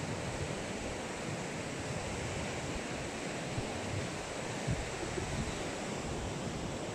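Ocean surf breaking along a sandy beach, a steady wash of noise, with wind gusting on the microphone.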